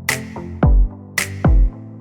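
Electronic background music with a heavy beat: deep kick drums and sharp snare hits over sustained synth notes.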